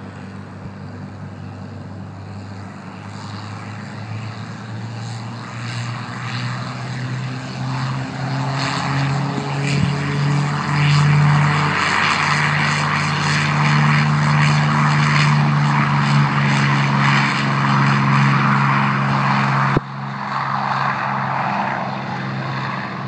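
P-51 Mustang's V-12 piston engine at full takeoff power, a steady propeller drone that grows louder over the first ten seconds or so as the fighter accelerates down the runway and lifts off. The sound drops suddenly about twenty seconds in, then carries on more quietly.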